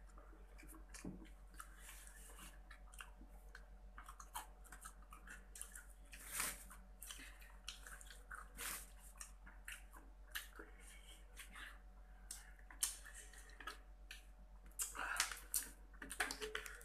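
Fried chicken being bitten and chewed close to the microphone: irregular crunching and mouth sounds, with the loudest bites near the end. A steady low hum runs underneath.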